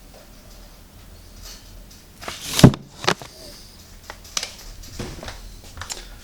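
Cardboard firework cake boxes being handled: a short scrape ending in a sharp thump about halfway through as a box is set down, then a click and a few lighter knocks.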